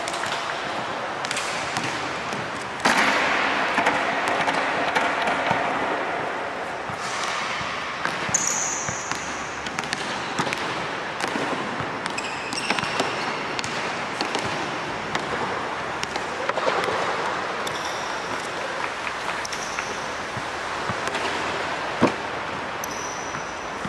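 Basketballs bouncing and knocking during shooting drills, a scatter of short sharp thuds over a steady background noise, with one louder knock near the end.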